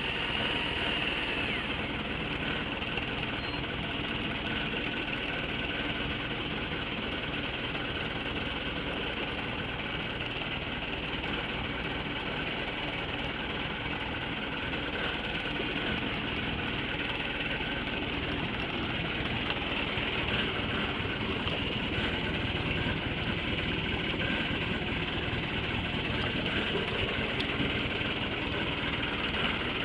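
Small fishing boat's engine idling steadily, growing slightly louder in the second half.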